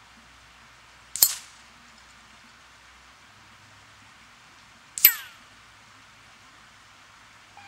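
Two .177 pellets striking a steel inch spinner target, each a sharp metallic clang with a brief ringing tail: one about a second in, the second about four seconds later.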